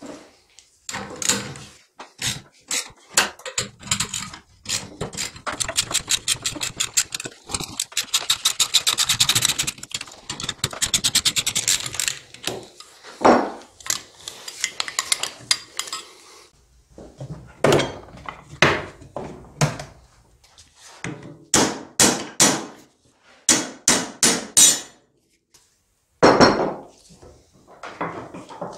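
Hammer blows on a spanner against the rusted-solid spring collar of a motorcycle rear shock held in a vise: sharp metal-on-metal strikes, a fast run of rapid taps in the first half, then spaced single blows, as the seized collar is driven loose.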